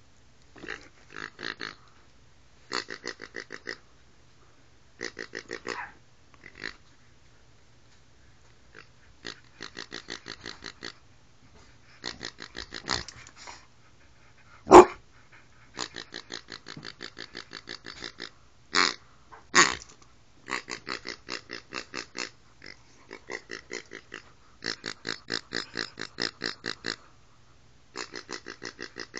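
Plush pig toy's oinking noisemaker going off in repeated bursts of rapid pulses, each about a second long, as a dog chews and squeezes it. A sharp knock comes about halfway through, and two louder short blasts follow a few seconds later.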